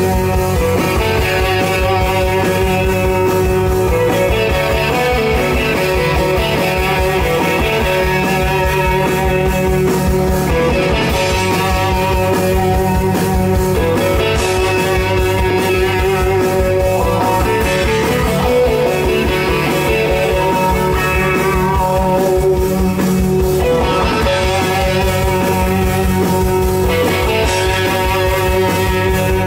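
Live rock band playing 60s–70s-style fuzz psychedelic rock: distorted electric guitars over bass and drums, with a steady, driving beat.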